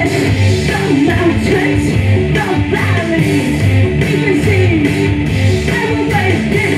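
Live rock music: an electric guitar played over a steady low pulse, with a voice singing.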